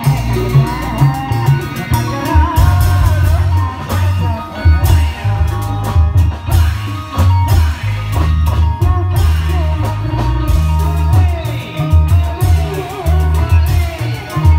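Loud Reog Indramayu music with a heavy, pulsing drum-and-bass beat, sharp percussion strikes and a wavering singing voice carrying the melody.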